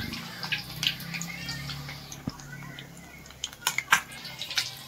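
Fish pieces frying in hot mustard oil, a steady sizzle broken by scattered sharp crackles and pops, several coming close together near the end.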